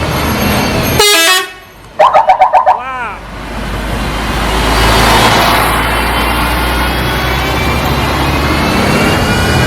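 Tour bus telolet horn playing a quick melodic tune: a stepped run of notes about a second in, then six rapid loud toots. After it, a low steady engine rumble rises as a bus passes, with voices.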